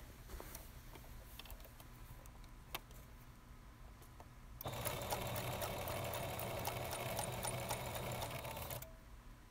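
Home electric sewing machine stitching denim: a few faint clicks of the fabric being handled, then about halfway through the machine runs steadily for about four seconds and stops suddenly.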